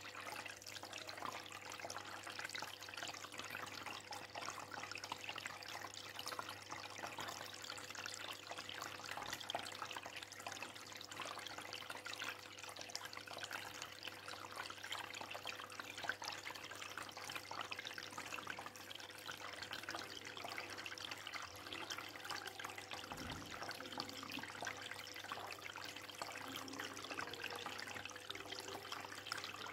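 Steady trickle of circulating aquarium water, with a faint steady hum underneath.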